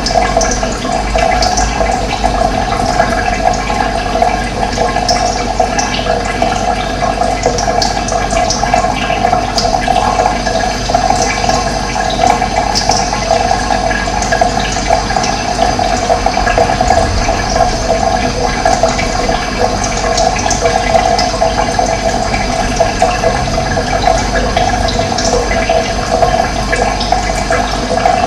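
Running water flowing steadily, a dense even rushing, with short high bird chirps scattered through it.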